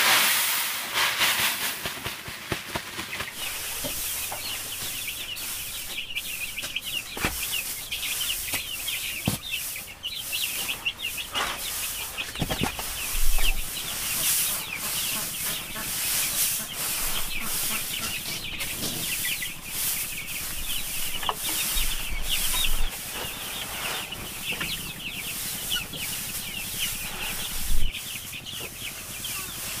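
Chickens calling continuously with many short high calls, over the dry rustle of rice-husk bedding being poured from a sack and spread by hand. A couple of sharp knocks stand out, one midway and one near the end.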